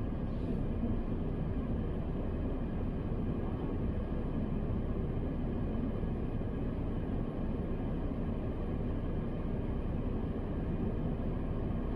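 Steady low rumble and hum inside a car cabin, even throughout with no distinct tones or knocks.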